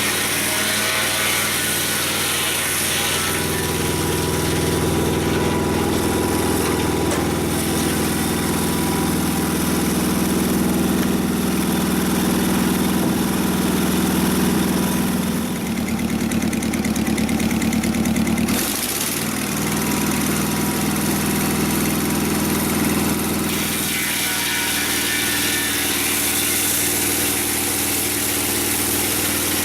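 Engine of a Mobile Dimension portable sawmill running steadily. From about four seconds in until about twenty-four seconds its sound turns heavier and deeper, with a brief break a little before twenty seconds, then lightens again.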